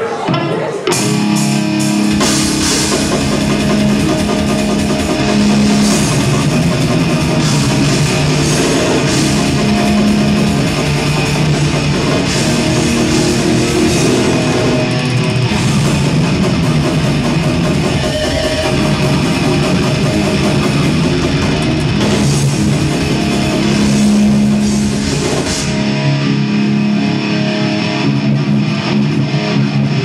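Live heavy metal band playing a sound check: distorted electric guitars, bass and a Mapex drum kit through the stage amplification. The low end comes in about two seconds in and drops away near the end.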